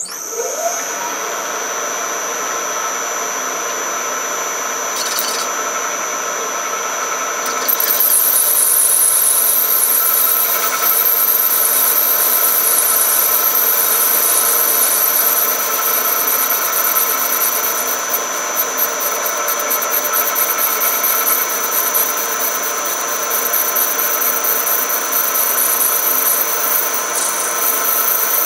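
Metal lathe spinning up, its pitch rising briefly, then running with a steady whine. About eight seconds in, a tool starts cutting inside the bore of the acetal ring, adding a loud hiss of plastic being shaved that lasts to the end.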